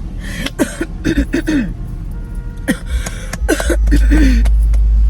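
A woman coughing and clearing her throat in two bouts, trying to clear something stuck in it. A low car rumble comes up in the second half.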